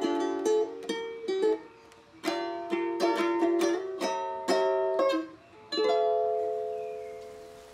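Ukulele playing a short tune of plucked notes and strummed chords, ending on a chord about six seconds in that rings out and fades away.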